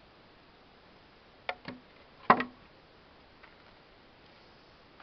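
A few short, sharp knocks and clicks over a quiet background, the loudest a double knock a little over two seconds in.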